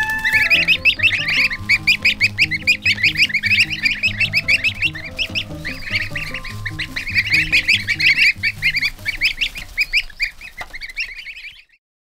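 A brood of young goslings peeping continuously, many rapid high calls overlapping, with soft music underneath; it all fades out shortly before the end.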